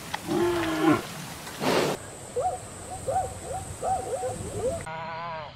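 Animal calls across two clips: first a giant panda's held, moo-like bleat with a short noisy huff, then zebras giving a string of short, yelping barks.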